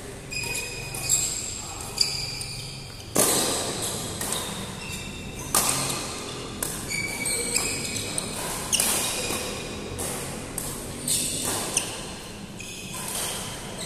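Shuttlecock struck back and forth with badminton rackets in a doubles rally: sharp hits every second or two, echoing in a large hall, with short high squeaks from shoes on the court between hits.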